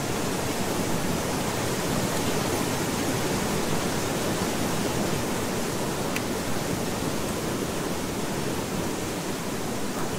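Steady, unchanging rushing noise like pink noise, with no rhythm or swell: the masking sound of a subliminal track, under which the affirmations are hidden.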